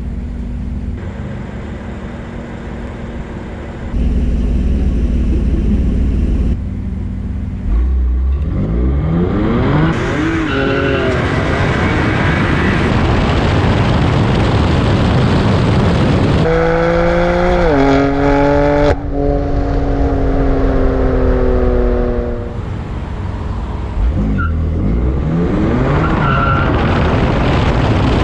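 BMW F80 M3's twin-turbo inline-six, with a cold air intake and a bootmod3 stage 1 tune, idling, then launching hard and revving up through the gears with quick upshifts. It eases off and winds down, then accelerates hard again near the end.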